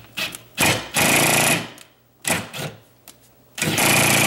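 Compact power drill driving a long flexible drill bit into the wall, run in about six stop-start bursts of the trigger, the longest about half a second. The drill is not up to boring the hole this way.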